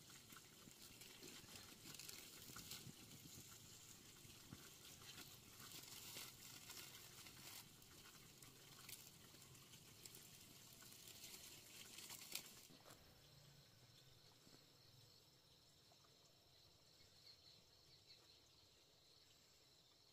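Near silence: faint crackling and rustling that drops away about two-thirds of the way through, leaving only a faint steady high tone.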